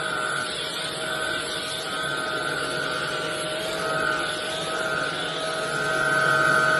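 Cordless stick vacuum with a brush head running steadily: a high motor whine over a lower hum and rushing air, growing a little louder near the end.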